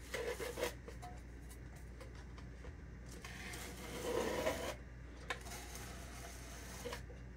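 Metal bench scraper scraping frosting along a plastic Frostform stencil shell on a cake, in soft rasping strokes near the start and again about three to four seconds in, with a light tap about five seconds in.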